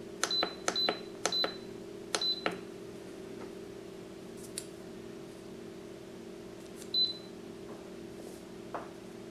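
Instant Pot pressure cooker's control panel beeping as its minus button is pressed to set the sauté time: four short high beeps, each with a button click, in the first two and a half seconds, then one more beep about seven seconds in. A steady low hum runs underneath.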